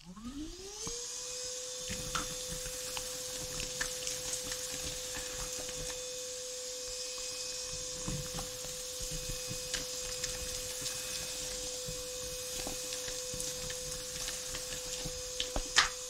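Small portable wet-and-dry vacuum switching on, its motor whine rising for about a second and then holding steady. Chips of broken tile and thinset click and rattle as they are sucked up the hose.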